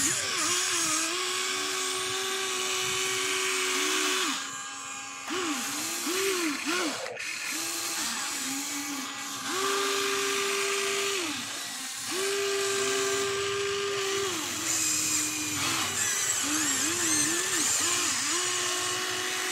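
Electric motors of a Huina RC excavator whining as it works its boom, arm and swing. Steady whines held for a few seconds at a time alternate with short whirs that rise and fall in pitch as the controls are flicked.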